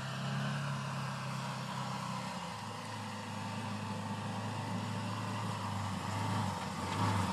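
Arctic Cat vehicle's engine running steadily, its note dropping slightly about a third of the way through.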